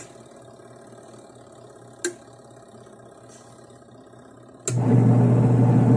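Eureka washing machine's wash motor switched off with a click, leaving a faint hum and another click about two seconds in. Near the end the motor starts again abruptly with a loud steady hum as the soft wash cycle is set running.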